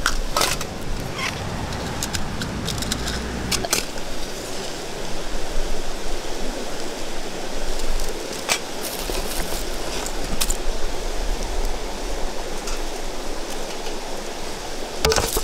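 Steady rushing of a nearby river, with scattered sharp clicks and snaps over it, a cluster of them near the end.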